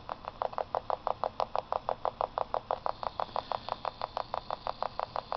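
Fast, even ticking, about eight ticks a second, from a small radio picking up a Stubblefield coil's secondary being switched on and off by a reed switch on a pulse motor rotor; each tick is one pulse of the coil.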